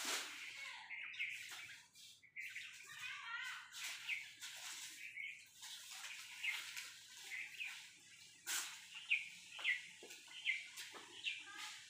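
Small birds chirping, short chirps repeated many times, with a sharp click about eight and a half seconds in.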